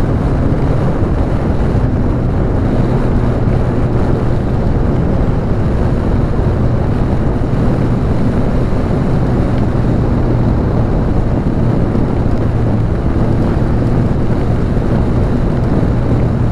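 2010 Suzuki GSX-R 750's inline four-cylinder engine running at a steady throttle through an Akrapovic exhaust as the bike rides along, its note holding even with no revving. Wind noise on the microphone.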